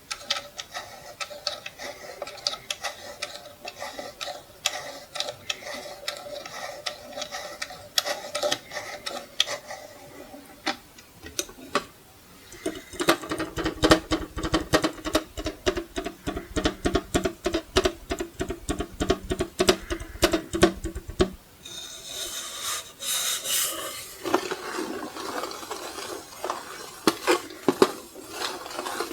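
Fingertips and nails tapping on a wall clock's metal and plastic case, each tap ringing briefly with a pitched tone. About halfway through the tapping turns into a fast, dense run, then gives way to a brighter scraping and rubbing near the end.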